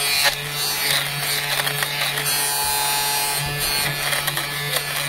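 Electric lint remover (fabric shaver) running with a steady buzz as it is rubbed back and forth over cloth, its blades shaving off lint.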